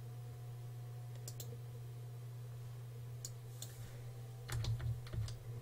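A few sparse computer mouse clicks, then a quick run of keyboard keystrokes about four and a half seconds in, typing a search word, over a steady low electrical hum.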